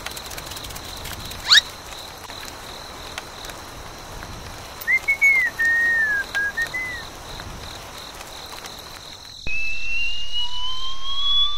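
Whistle-like sound effects: a quick rising swoop about a second and a half in, a short wavering whistle in the middle, then a long, louder rising whistle glide over the last couple of seconds. Under them runs a steady faint high whine and hiss.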